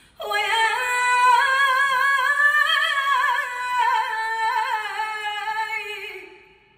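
A woman singing one long unaccompanied phrase into a microphone in Uzbek traditional style. The held note is ornamented with quick wavering turns, drifts slightly up and then down, and fades out near the end.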